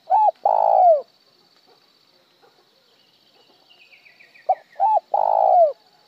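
Spotted dove cooing up close: two coo phrases about four and a half seconds apart, each of two short notes followed by a longer note that falls in pitch at the end. This is the call with one trailing tail note, which Vietnamese keepers call 'một hậu'.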